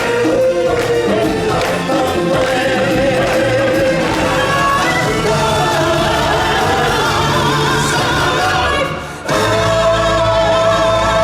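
Live stage show music: singers and a choir performing over backing music. The sound dips briefly about nine seconds in and then resumes on a new held note.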